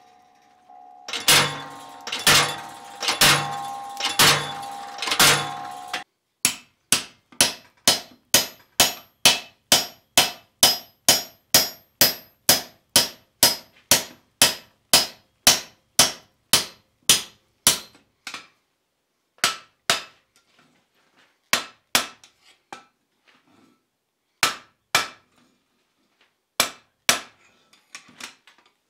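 Hand hammer striking a square punch into hot iron bar on the anvil to punch a square hole. First come about five ringing blows roughly a second apart, then a long run of quick, even blows about two or three a second, then slower, spaced strikes.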